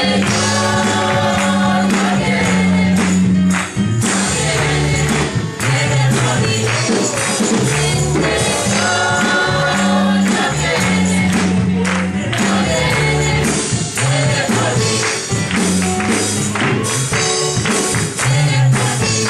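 A church choir singing a gospel worship song with band accompaniment: a steady bass line under the voices and sharp, regular percussion strokes.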